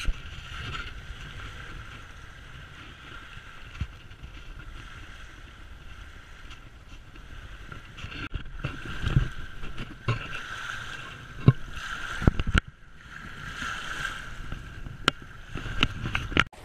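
Wind noise on the microphone and choppy lake water washing against the bank, broken by a few sharp clicks in the second half.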